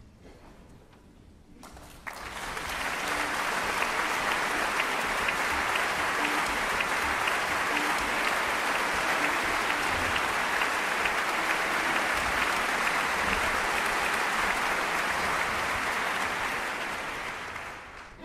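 Audience applauding, breaking out about two seconds in, holding steady, then dying away near the end.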